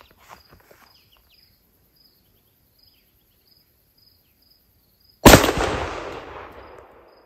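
A single 12-gauge shotgun shot a little over five seconds in, fired with a Browning Wicked Wing XD steel duck load at a patterning target. The boom rolls away over about two seconds. Before it, faint insect chirps repeat steadily.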